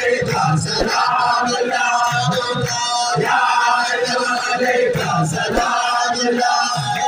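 Many men chanting loudly together in a Sufi dhikr circle, a rhythmic group chant with irregular low thumps beneath it.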